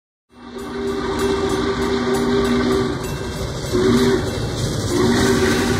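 Norfolk & Western 611's steam chime whistle blowing over the noise of the moving train: a long blast, a short one about four seconds in, then another long blast starting near the end.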